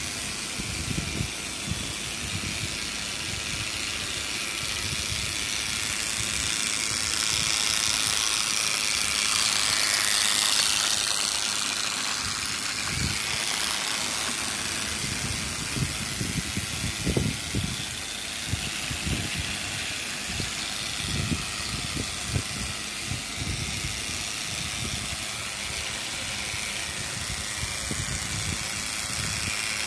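Battery-powered Fisher-Price TrackMaster Thomas toy engine running on plastic track pulling two coaches: a steady whir of its small motor and gears, growing louder about a third of the way through, with irregular low knocks as the wheels and coaches rattle along the track.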